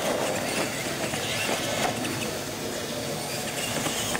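Two radio-controlled monster trucks driving fast on concrete: a steady whir of motors and drivetrains mixed with tyre noise.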